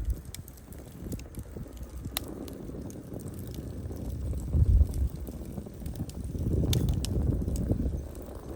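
Wood fire burning, logs crackling with scattered sharp pops and snaps over a low rumble that swells twice, around the middle and again later.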